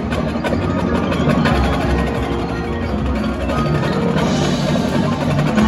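Marching band playing its field show, winds and drums together, with many sharp percussion strokes and the front ensemble's mallet instruments (marimbas, bells) standing out, heard from the stands of a large indoor stadium.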